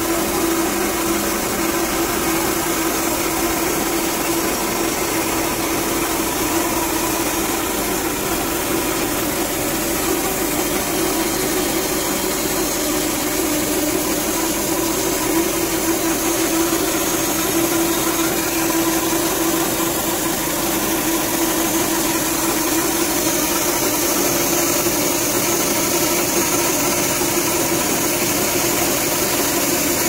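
Portable band sawmill running steadily, its band blade cutting lengthwise through a log, with a constant hum.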